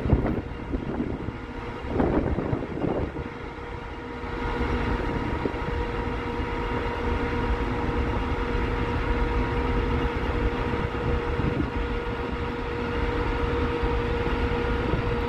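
Steady drone of a ship under way, with a constant machinery hum and wind rumbling on the microphone on the open deck. The noise swells about four seconds in.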